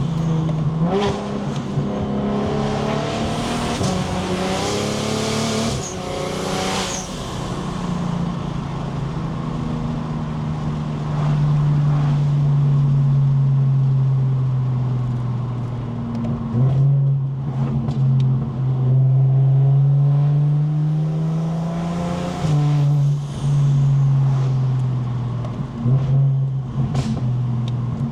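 Single-turbo BMW 335is N54 inline-six pulling through the gears with its dual-clutch transmission: the engine note climbs, then drops sharply at each quick upshift, several times over. Turbo rush and a high spool whistle rise under boost.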